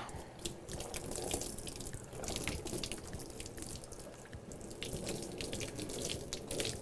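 Water running from a handheld sink sprayer wand onto a wet dog's coat, splashing and dripping into the sink with an irregular patter.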